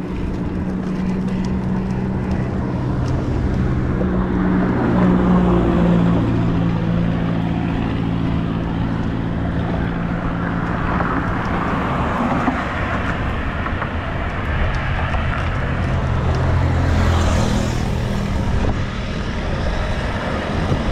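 Strong wind rushing over the microphone of a road bike riding into a headwind, a continuous noise with a steady low drone under it. A short hiss rises about three-quarters of the way through.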